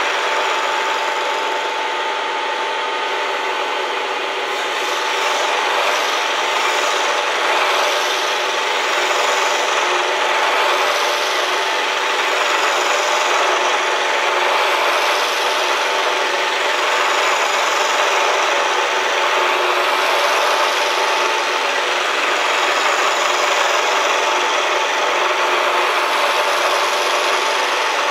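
Bridgeport milling machine running a cut: a steady whine under a continuous rasping of the cutter.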